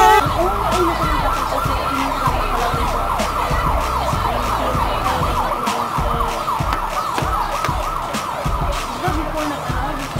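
Electronic siren in its fast yelp mode, its pitch rising and falling several times a second without a break.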